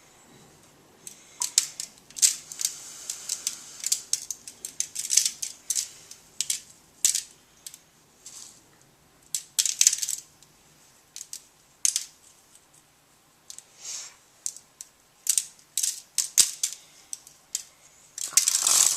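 Seasoning shaker shaken over the chicken in short, irregular rattling bursts, with dry seasoning pattering out.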